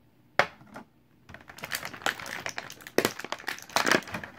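Stiff clear plastic blister packaging crackling and clicking as it is handled and pulled free of its cardboard box: one sharp click about half a second in, then a run of crackling with louder snaps near the end.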